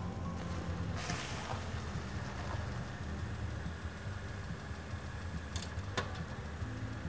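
Car engine running low and steady as the car pulls up, with a rush of tyre and road noise about a second in. A single sharp click near the end.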